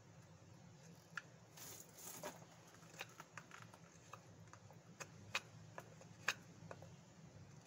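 Knife whittling a hickory axe handle: quiet, irregular clicks and short scrapes as the blade cuts shavings from the wood.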